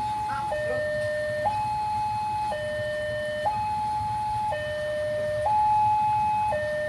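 Railway level-crossing warning siren sounding a two-tone hi-lo alarm, switching between a higher and a lower tone about once a second, the signal that a train is approaching. A low steady rumble runs beneath it.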